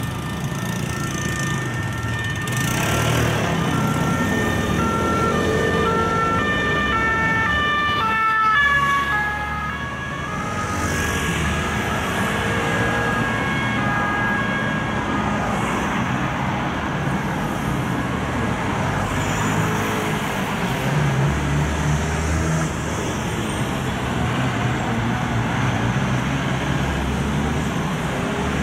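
French police two-tone siren alternating steadily between a high and a low pitch. It drops in pitch about eight seconds in as the car passes, then fades under city traffic and engine noise.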